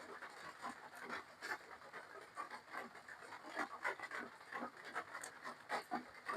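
Close-up eating sounds of spicy papaya salad: wet chewing and lip-smacking with quick, sharp breaths, the panting of someone eating very hot chili.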